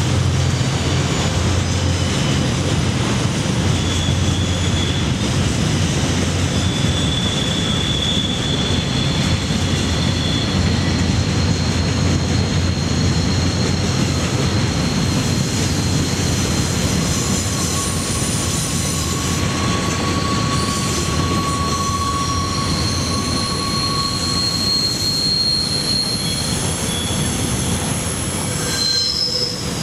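Container flat wagons of a long freight train rolling past on a curve: a steady rumble of wheels on rail, with wheel flanges squealing on the curve in high, held tones that come and go.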